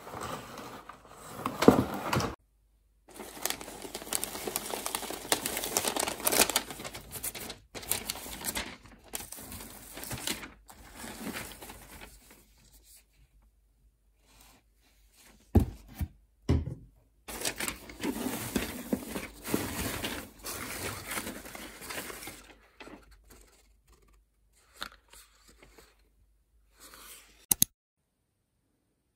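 Cardboard parcel being unpacked by hand: rustling, crinkling and tearing of paper packing and shredded paper fill, in spells with pauses, and a couple of sharp knocks about halfway through.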